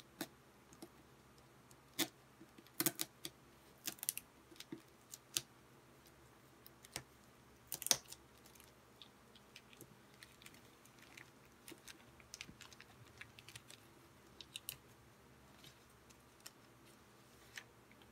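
Fingernails picking at and peeling packing tape on a cardboard parcel, with crinkling plastic wrap. It comes as scattered sharp clicks and crackles, the loudest in the first eight seconds, then smaller ones spread out.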